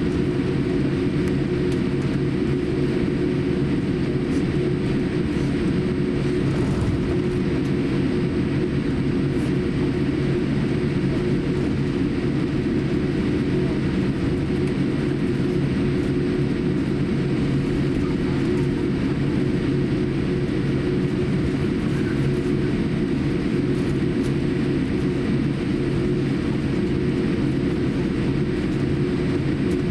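Steady low cabin drone inside a Boeing 787-8 airliner taxiing, its engines at taxi power, heard through the cabin wall.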